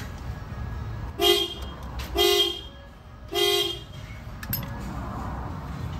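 Toyota Land Cruiser's car horn giving three short toots about a second apart, set off by hand at the bare steering column during a horn test with the steering wheel removed.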